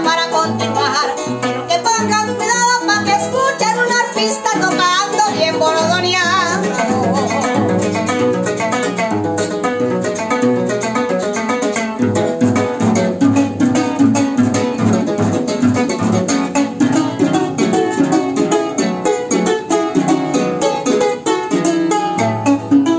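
Llanera harp playing a fast joropo, dense plucked runs over a moving bass line. A voice holds a wavering note that ends about six seconds in, and the harp carries on alone.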